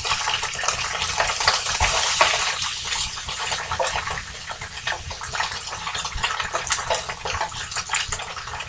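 Crumbled tofu sizzling in a frying pan while it is stirred with a wooden spoon: a steady crackling hiss, a little quieter in the second half.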